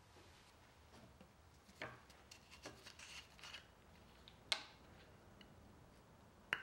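Faint handling noises: light rustles and taps, then two sharp clicks, about four and a half seconds in and near the end, as a can and its plastic cap are handled and set down on a wooden slab.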